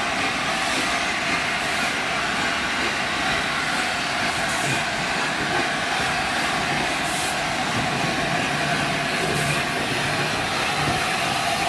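Steam-hauled train rolling slowly past along the platform, ending with the A4 Pacific steam locomotive 60009 Union of South Africa and its tender going by; a steady, even running noise.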